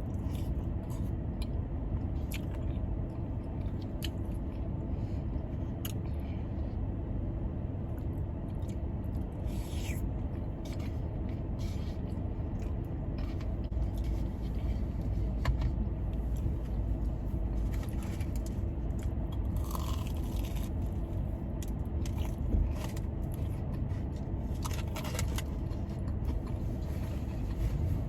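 Steady low hum of a car's air conditioning, with scattered clicks, scrapes and crunchy eating sounds.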